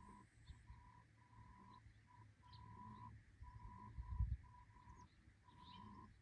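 Near silence in open air: a few faint, short bird chirps, a faint on-and-off hum at one steady pitch, and a brief low rumble about four seconds in.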